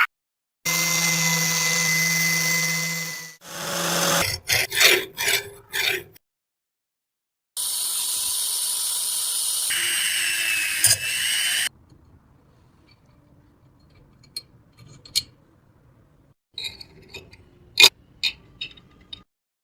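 Power tools working on a metal wrench: a power tool runs steadily for about three seconds, followed by a quick run of rubbing strokes. A second steady, hissy tool sound runs for about four seconds and stops abruptly, then only scattered light clicks and knocks.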